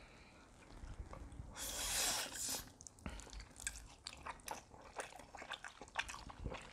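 People eating spicy carbo noodles with king crab meat. A burst of noodle slurping comes about two seconds in and lasts about a second, then wet chewing with many small mouth clicks and smacks.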